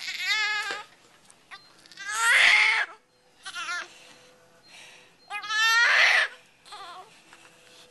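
Newborn baby crying in a series of short, wavering wails with gaps between them, the loudest about two and six seconds in.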